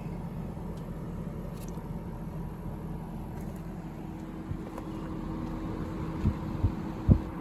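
Pioneer 12K mini split outdoor unit running in cooling mode: a quiet, steady hum. A faint steady tone joins about three and a half seconds in, and a few low bumps come near the end.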